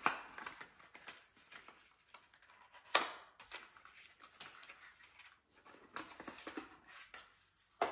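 Cardboard box and packaging of a digital kitchen thermometer being opened by hand: faint crackling and rustling, with a sharp snap about three seconds in and another near the end.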